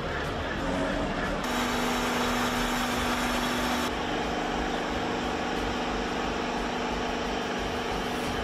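Heavy machinery running with a steady droning hum, its tone changing abruptly about a second and a half in and again near four seconds.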